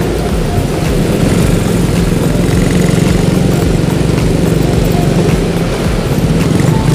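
Small motorcycle engine running steadily on the move, with wind and road noise.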